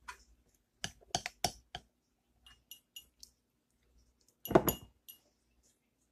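A metal tablespoon clinking and scraping against a bowl while biscuit dough is scooped: a quick run of clinks about a second in, a few light ringing pings, then a louder clatter past the four-second mark.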